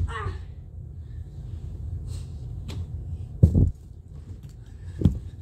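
Dull thuds of a person's body hitting a carpeted stair landing: one right at the start, a heavier one about three and a half seconds in, and a lighter one near the end, over a steady low hum.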